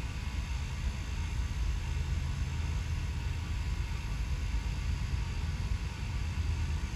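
Low, steady rumble of distant traffic and an approaching diesel freight train.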